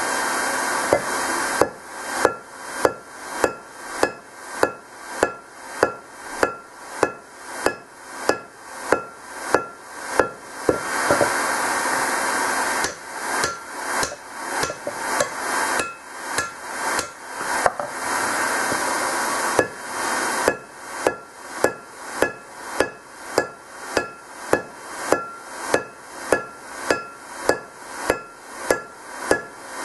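Hand hammer blows on a glowing steel sledgehammer head lying on an anvil, about two a second, each strike ringing the anvil. A few times the blows stop for a second or two of steady rushing noise.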